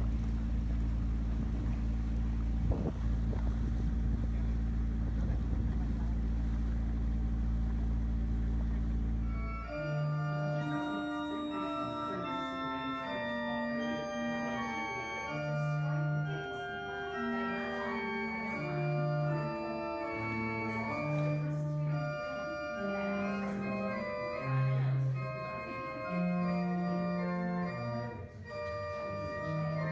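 A motorboat's engine running steadily for about ten seconds. It then cuts to an organ playing slow, held chords inside a stone chapel.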